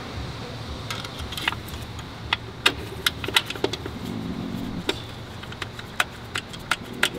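Irregular light metallic clicks and taps of hand tools and bolts as the throttle body is bolted back onto the engine.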